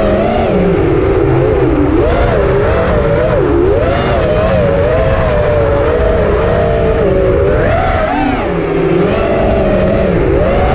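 Racing drone's brushless motors and propellers whining, the pitch rising and falling constantly with throttle changes.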